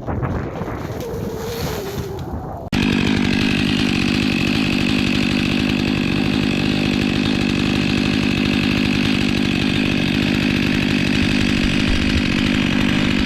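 Stihl MS500i chainsaw engine. For the first few seconds it runs quieter with a falling pitch, then about three seconds in it jumps abruptly to a loud, steady run that holds at one pitch.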